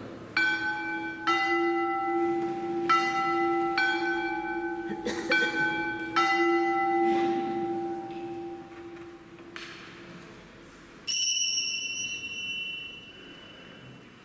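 Altar bells rung at the consecration to mark the elevation: about seven strikes of ringing, slightly differing pitches in the first six seconds, their tones lingering, then a single higher, brighter strike about eleven seconds in that rings away.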